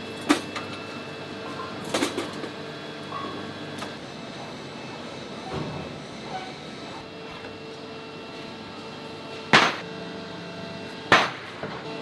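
Metal forging work: a few sharp clanks of metal striking metal, the two loudest near the end about a second and a half apart, over a steady machinery hum.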